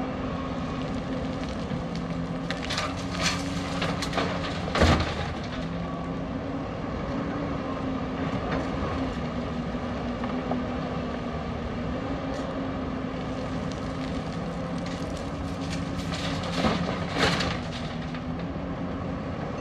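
Hyundai crawler excavator's diesel engine running steadily under hydraulic load, with the bucket knocking and scraping into gravel several times about three to five seconds in. Near the end a bucketload of rock and dirt crashes into the dump truck's steel bed.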